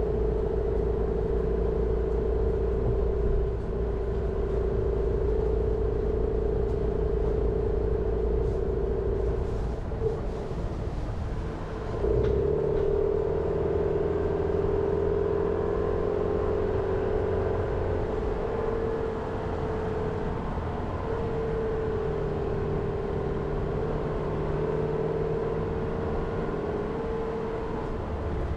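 Jeep Renegade driving along a forest road: steady engine and road noise with a low rumble and a droning hum. The hum drops off for a moment about ten seconds in, then comes back and rises slightly in pitch before settling.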